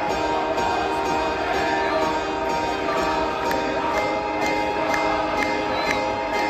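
Live rock band playing through a big outdoor PA, heard from the crowd: electric guitars over a steady beat in an instrumental stretch with no singing.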